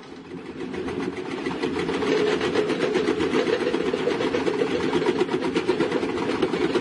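Diesel engine of heavy construction equipment running under load, with a fast, even pulsing; it grows louder over the first two seconds and then holds steady.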